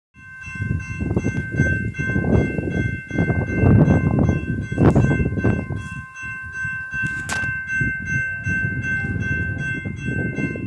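Railroad crossing warning bell ringing steadily with the gates down and lights flashing, the signal that a train is approaching. Under it, a loud low rumble comes and goes.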